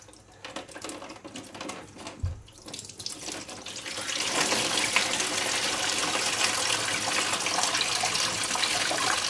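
Pink coolant draining from a Honda CBR 600 engine and splashing into a plastic tub. It dribbles at first, then turns into a steady pouring stream from about four seconds in.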